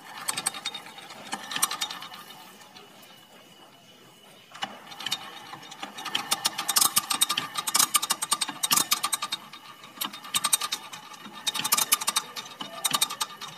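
Rapid mechanical clicking and ratcheting from an old Honda Supra single-cylinder four-stroke motorcycle engine being turned over to work its oil pump, checking that oil rises towards the cylinder head. The clicking is faint at first and becomes dense and louder about four and a half seconds in.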